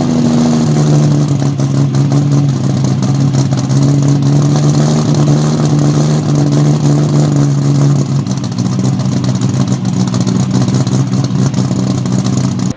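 MkIV Toyota Supra's 2JZ straight-six running loud and steady through a large single-exit exhaust. Its note changes slightly about eight seconds in.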